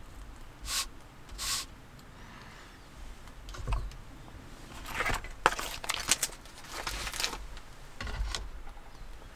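Small kitchen handling sounds: a kitchen knife set down on a wooden cutting board with a low knock, then a plastic food package picked up and crinkled, with a run of sharp crackles and clicks between about five and seven seconds.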